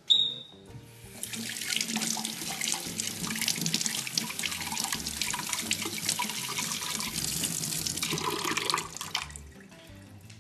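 Running water, like a tap running into a sink: a steady splashing hiss that starts about a second in and stops about nine seconds in. It is preceded right at the start by a brief high-pitched ping.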